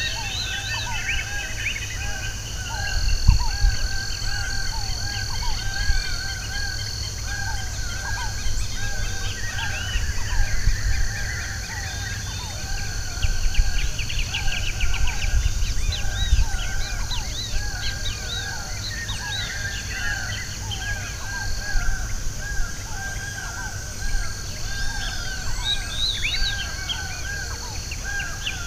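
A chorus of many wild birds calling and singing at once, with short repeated chirps overlapping throughout, over a steady low rumble.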